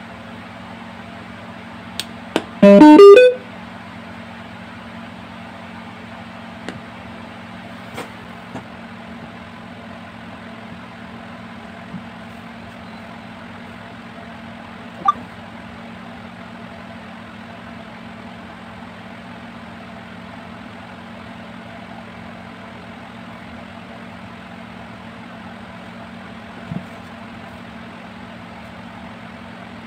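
A switch clicks and the homemade Bluetooth speaker sounds its loud rising power-on chime about three seconds in. After that a steady low hum runs on, with a few faint clicks.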